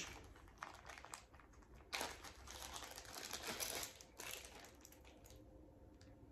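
Wrapping material crinkling and rustling in someone's hands as a piece of jewelry is unwrapped. There are several irregular rustling bursts in the first four seconds or so, and it goes quieter near the end.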